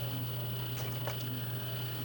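A steady low hum throughout, with a few faint light clicks about a second in, likely a small screwdriver turning the PlayStation 5's SSD-slot screw back in.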